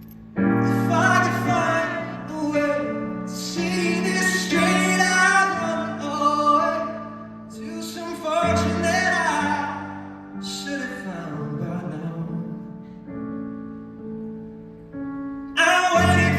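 A male singer singing a slow song live, with sustained chords struck beneath his voice: once at the start, again about halfway, and again near the end.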